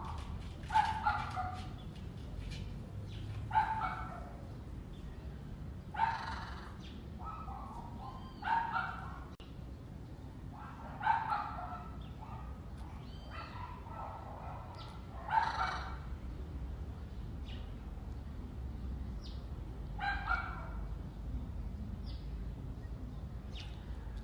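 A dog barking in single barks or quick pairs every two to five seconds, with a few fainter, higher short calls between the barks.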